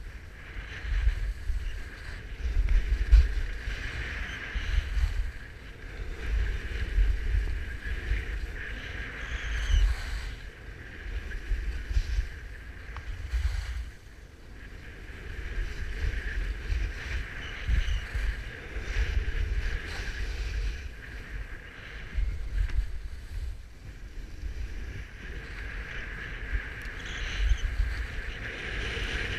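Wind buffeting a skier's body-worn camera microphone as a deep rumble, with skis hissing and scraping over packed snow, swelling and fading every couple of seconds through the turns.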